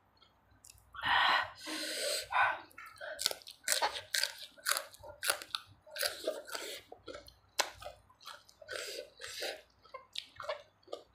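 Close-up wet chewing and smacking of mouthfuls of papaya salad with soft rice noodles, with many small irregular clicks and squelches. About a second in comes a longer, loud sucking noise.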